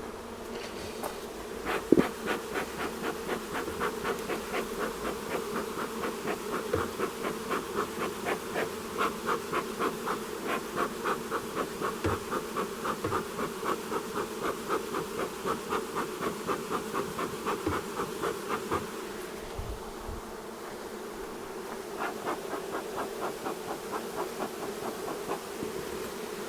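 Honeybees buzzing in a steady hum over an open hive, with a bee smoker's bellows being pumped in quick regular puffs, about three a second, pausing briefly about two-thirds of the way through. A single sharp knock about two seconds in.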